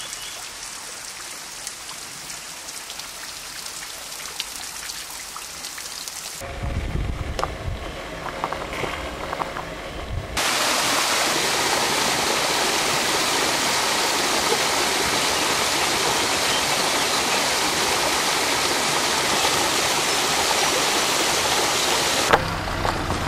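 Water rushing over a small waterfall and cascades in a rocky gorge: a steady, even rushing noise, softer at first and much louder from about ten seconds in. The sound changes abruptly a few times where the recording is cut.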